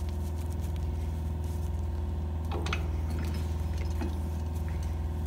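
A shop power tool's electric motor running steadily, a low even hum, with a few light taps of metal being handled about two and a half seconds in.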